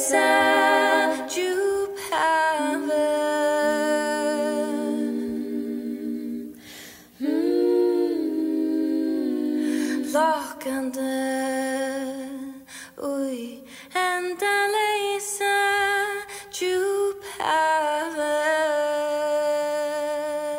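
Small group of women's voices singing together without instruments, holding long chords in close harmony, with short breaks between phrases about a third and two thirds of the way through.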